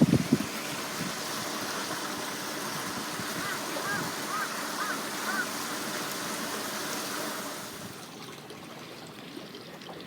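Steady rush of water flowing in a swollen, muddy waterway. The rush drops in level about eight seconds in, and a few short high chirps sound in the middle.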